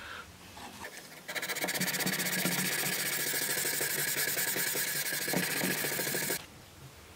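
Sandpaper on a hand-held block scraped steadily along a hardened steel knife blade during hand finishing. The scraping starts abruptly about a second in and stops abruptly about a second before the end.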